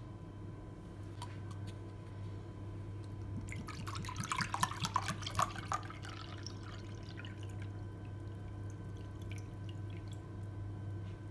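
Sparkling mineral water poured from a glass bottle into a glass tumbler, splashing for about two seconds from about three and a half seconds in, then fizzing as the bubbles die away.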